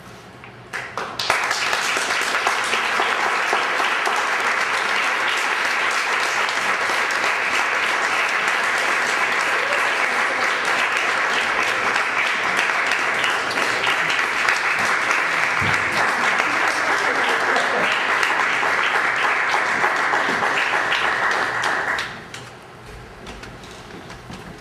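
Audience applauding, a dense steady clatter of many hands that starts about a second in, holds for some twenty seconds, then dies away quickly near the end.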